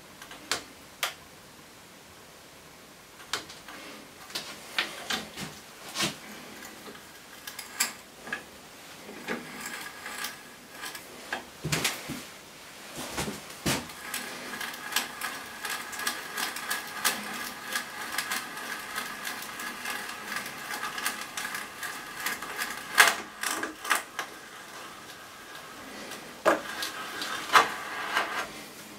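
Spiral auger bit in a hand brace boring into a softwood board. It starts with scattered clicks and creaks. From about halfway it becomes a continuous cutting noise with a steady faint tone as the bit turns, broken by sharp clicks, and it pauses briefly before a last few turns near the end.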